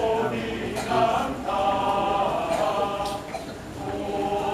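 Mixed choir of men and women singing together, holding long sustained chords, with a short dip in loudness a little over three seconds in.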